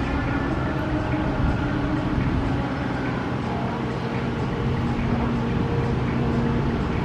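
Steady rumble of a Boeing 777-300's twin jet engines on final approach, with a few faint steady tones drifting slightly in pitch.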